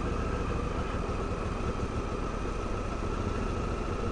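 Honda Africa Twin CRF1000L's parallel-twin engine running steadily at an even, low speed, with no change in pitch or level.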